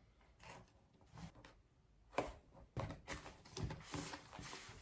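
Faint taps, clicks and light knocks of a cardboard camera box being handled and opened, with one sharper knock about two seconds in and a run of small clicks after it.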